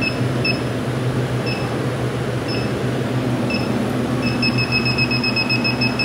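Inficon TEK-Mate refrigerant leak detector ticking with a short beep about once a second, then from about four seconds in beeping rapidly, about six a second, as it goes into alarm. The detector was bumped, so this is a false alarm rather than a leak hit. A steady low hum runs underneath.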